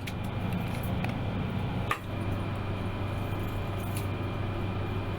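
A steady low mechanical hum over an even rushing noise, with a single sharp click about two seconds in.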